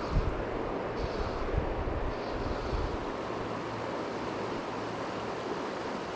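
A shallow river running steadily over gravel, a constant rushing wash of water. Wind buffets the microphone with low rumbles during the first three seconds.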